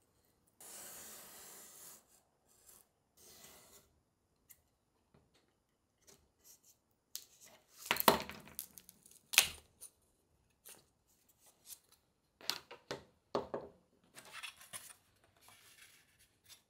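Utility knife blade drawn through styrene foam board along a ruler, a dry rasping scrape in several strokes, with sharp knocks and clatter as the board and cut pieces are handled on the cutting mat; two loud knocks about eight and nine and a half seconds in are the loudest sounds.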